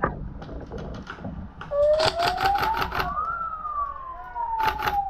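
Airsoft guns firing: a few single shots, then a fast burst of about ten shots a second about two seconds in, and a short second burst near the end. Over them a siren winds up in pitch and then slowly falls, the signal that the game has ended.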